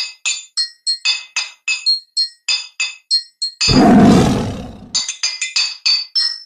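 Intro music of quick, bright chime-like struck notes, about three a second. About three and a half seconds in, a loud big-cat roar sound effect cuts across it for just over a second.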